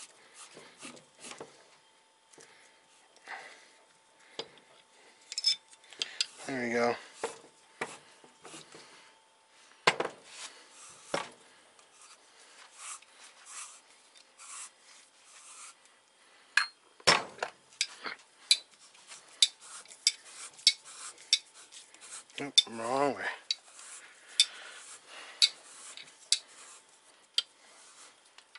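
Metal clinks, knocks and rubbing as a coilover strut and its steel spring are handled and worked with spanner wrenches on a workbench, with many scattered sharp clicks. Two brief creaking squeaks stand out, about 7 s and 23 s in.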